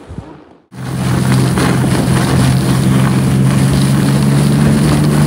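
Snowmobile engine running steadily at speed while towing a sled over snow: a low, even drone under a loud hiss of wind. It comes in suddenly under a second in, after a short, quieter stretch.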